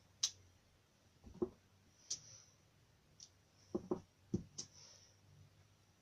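Clear acrylic stamping block set down and pressed onto cardstock on a tabletop, again and again: a scattering of about eight soft taps and clicks at uneven intervals, some sharp, some duller.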